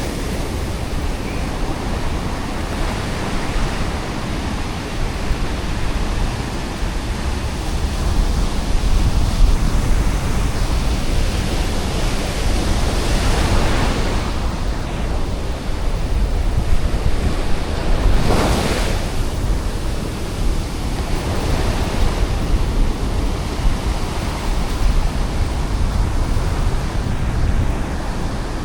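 Ocean surf: waves breaking and washing up the beach over a constant low rumble, with wind buffeting the microphone. Two waves break louder, one about halfway through and another a few seconds later.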